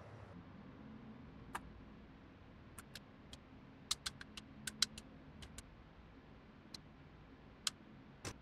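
A dozen or so small, sharp, irregular clicks and taps of a plastic card and packet against a plastic CD case, as powder is tipped out and worked on it, over a faint low hum.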